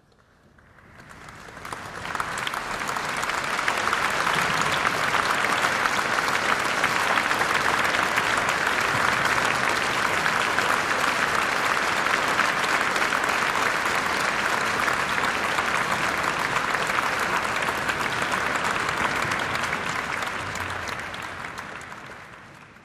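Audience applauding, swelling over the first couple of seconds, holding steady, then fading out near the end.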